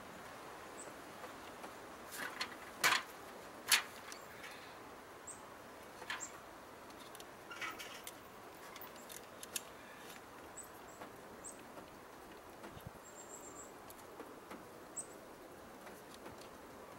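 A few sharp clicks and knocks from handling and fitting a solar motion-sensing security light on a wooden gate post, the loudest about three and four seconds in. Faint, short, high-pitched bird chirps come now and then.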